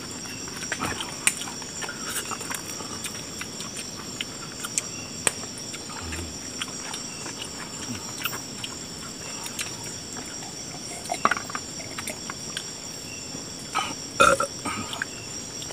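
Steady high chirring of night insects, with scattered small clicks and knocks of plastic plates and cups as people eat by hand. A short burst of louder clatter comes near the end.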